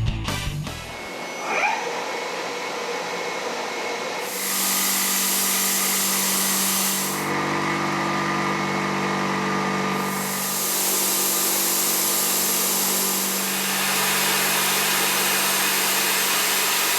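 Indexable end mill cutting metal on a CNC machine: a steady hum with a loud hiss of cutting that starts about four seconds in, eases for a few seconds midway, and then comes back.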